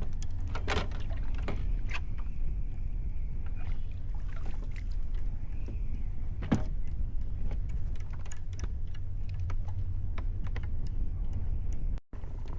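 Low steady rumble with scattered knocks and clicks of gear being handled aboard a kayak on the water; the sound drops out for a moment near the end.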